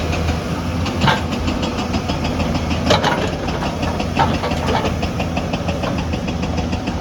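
Engine of a heavy construction machine running steadily, with a fast even ticking over the engine note and a few sharper metallic clanks about a second, three seconds and four seconds in.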